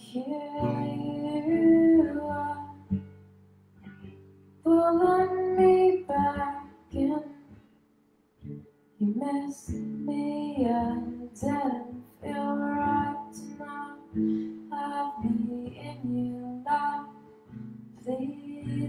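A woman singing a slow song, accompanying herself on a strummed acoustic guitar.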